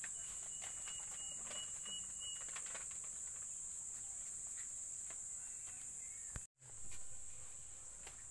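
Steady high-pitched drone of insects, with a thin steady whistle-like tone alongside it for the first couple of seconds. The sound cuts out completely for a moment about six and a half seconds in, then the drone carries on.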